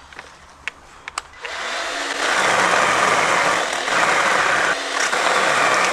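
Worx JawSaw cordless electric chainsaw starting a second and a half in after a few clicks, then running loud and steady with its chain cutting into wood.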